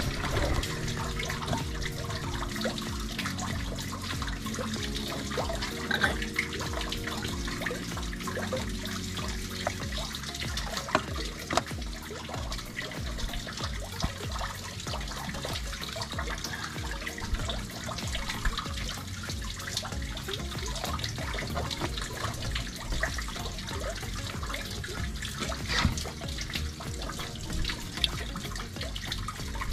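Wet handling of fresh squid and fish: dripping, trickling and squelching over a water-filled basin, with scattered short clicks and scrapes from a knife working a fish on a wooden board. Soft background music with held notes plays underneath.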